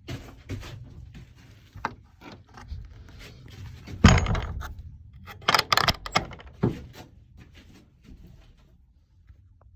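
A series of knocks and clinks, the loudest about four seconds in and a cluster of sharper ones around six seconds.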